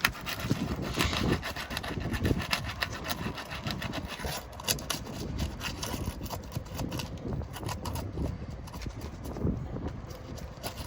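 Irregular scraping and rubbing against asphalt roof shingles as they are worked loose and their seal strips broken, with scattered small clicks.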